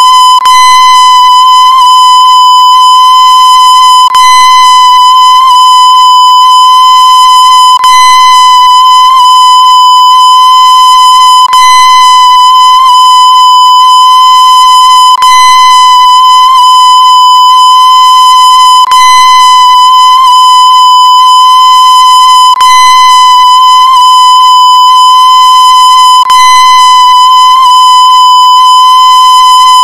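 A loud, distorted, steady high beep tone at one unchanging pitch, with a tiny break about every four seconds where it loops.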